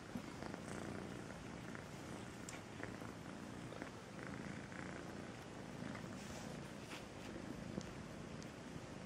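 Kitten purring steadily while its belly is stroked, a continuous low rumble with a few faint ticks.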